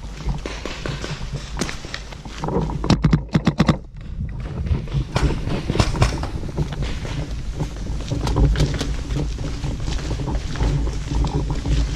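Footsteps crunching on a gravel path over a steady low rumble; about three seconds in, a quick run of sharp cracks, several within a second.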